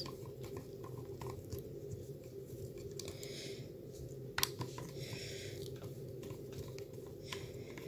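Handheld screwdriver turning small screws out of an airsoft gearbox shell: faint scattered clicks and two short scratchy rasps, one sharper click in the middle.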